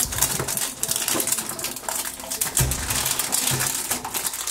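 Plastic packaging wrap crinkling and crackling as it is torn and peeled off a plastic toy capsule by hand, with a couple of soft thumps a little past halfway.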